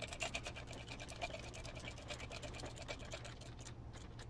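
Hand hex driver turning a small screw into an RC truck's bumper: a fast run of light clicks and scratches that thins out to a few separate clicks near the end.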